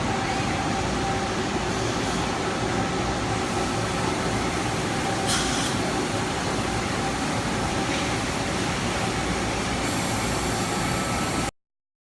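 Steady machinery noise from a robot-tended machine-tool cell running, with faint steady tones under it and a short hiss about five seconds in. It stops abruptly near the end.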